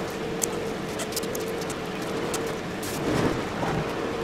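Raw shrimp being peeled by hand on a plastic cutting board: small crackling clicks of the shells breaking, over a steady background hiss with a faint hum. About three seconds in there is a short fuller clatter as the board and shrimp are handled.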